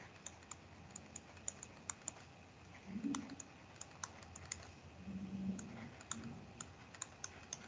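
Faint, irregular small clicks and taps from handwriting an equation on a computer with a pen or mouse input device, with two brief soft low hums about three seconds and five seconds in.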